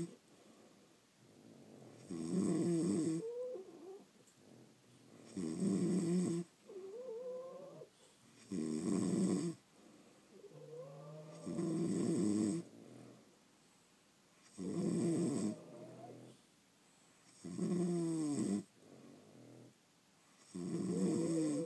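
Sleeping French bulldogs snoring: a loud, rasping snore about every three seconds, each lasting about a second, with a fainter wavering whistle on some of the breaths in between.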